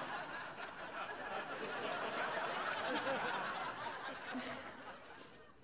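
Sitcom studio audience laughing at a joke, a broad wash of laughter that dies away over the last second or so.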